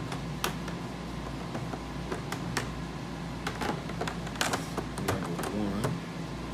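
Hard plastic CGC comic-book slab cases clacking and tapping against each other as they are handled and shuffled, a string of irregular sharp clicks.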